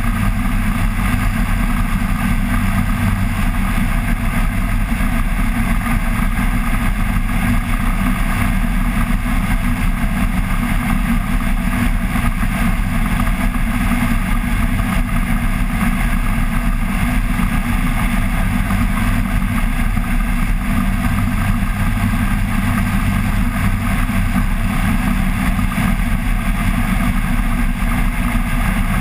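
Flex-wing microlight trike's pusher engine and propeller running steadily in cruise flight.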